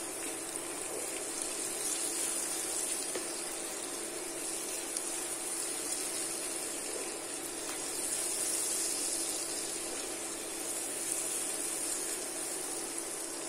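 Onions, green chilies and spices frying in hot oil in a pan, a steady sizzle, as they are stirred with a wooden spoon.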